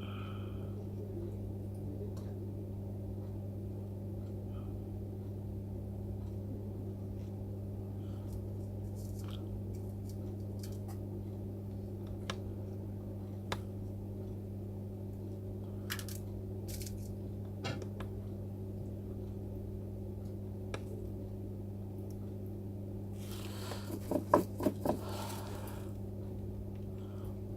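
Steady electrical mains hum from the repair bench equipment, with a few faint small clicks of tools at work and, near the end, a quick cluster of four or five louder ringing taps.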